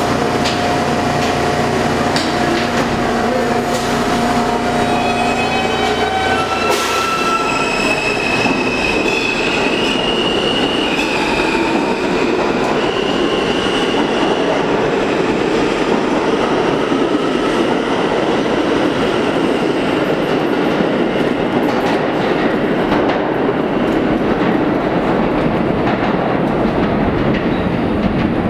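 R160A New York City subway train departing a station: it hums steadily while standing with its doors open, the doors close about seven seconds in, then the traction motors give a stepped, rising whine as it pulls away, followed by wheels rumbling and clacking on the rails as the train leaves.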